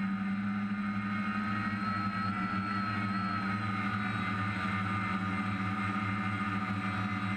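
DJI F550 hexacopter's six electric motors and propellers whining steadily in flight, heard close up from the camera on the craft, with a low hum under a higher whine whose pitch rises a little a couple of seconds in and then eases back.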